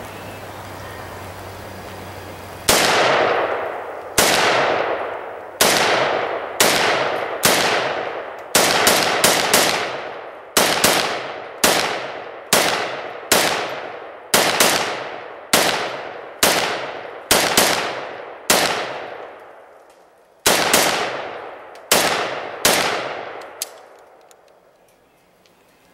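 AK-pattern rifle fired about twenty times in semi-automatic fire, roughly a shot a second, with a quick string of four shots about nine seconds in. Each shot trails off in a decaying echo. The firing starts a few seconds in and stops shortly before the end.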